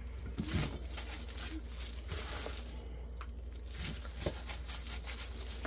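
Gloved hands handling and moving salted fish pieces back into a container: irregular rustling and scraping noises, with a few soft knocks, over a steady low hum.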